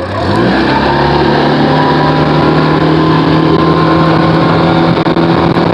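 Tohatsu outboard motor throttled up, its pitch rising over about the first second, then running steady at high revs as the small boat gets up on plane.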